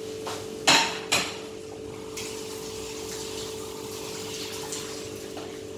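Fish fillets frying gently in oil in a pan over low heat: a soft, steady sizzle under a constant hum. Two sharp clacks come about a second in.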